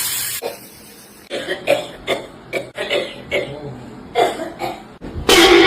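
A person coughing: a run of short, rasping coughs in quick succession, with one longer, louder cough near the end.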